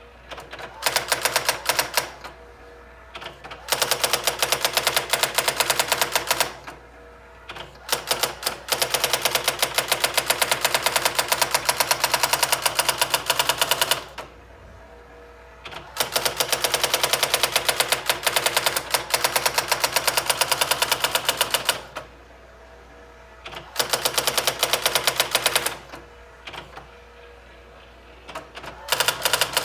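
Brother SX-4000 electronic typewriter striking characters in fast, evenly spaced runs of several seconds each, with short pauses between the runs.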